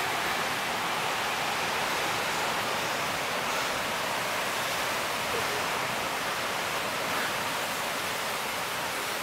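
A steady, even rushing noise outdoors, with no rhythm and no separate events.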